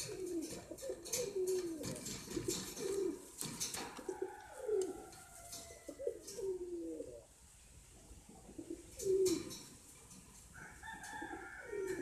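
Domestic pigeons cooing over and over, in low coos that swoop up and down in pitch. Sharp clicks and rustles fall between the coos, and thinner, higher calls come in twice.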